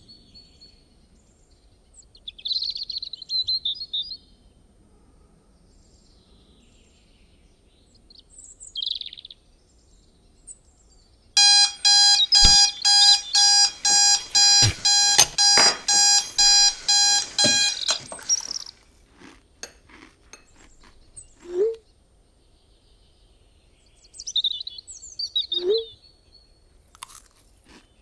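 Birds chirping in short bursts, then an electronic alarm clock beeping in a fast, even run for about six seconds, followed by scattered small clicks and knocks.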